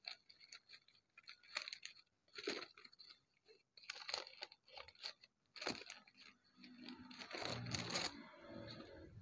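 Paper wrapping of an NPR parts package rustling and crackling in gloved hands, a string of short irregular rustles as it is handled and opened.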